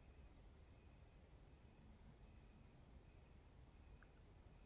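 Near silence, with the faint steady high-pitched fast-pulsing trill of a cricket.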